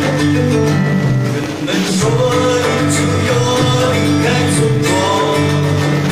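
Live folk music from two acoustic guitars playing together, with a voice singing held notes over them.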